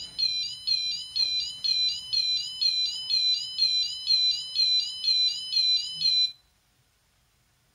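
A Train-Tech LC10 model level crossing sound unit plays its crossing alarm through its small speaker, set off by a wagon passing the track sensor. It is a high warbling electronic tone that repeats about three times a second and cuts off suddenly about six seconds in.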